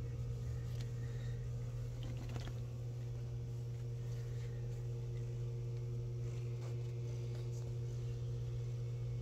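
A steady low hum with no rise or fall, over which a few faint soft rustles and light clicks come and go, fitting a hand handling a cat's fur and the phone.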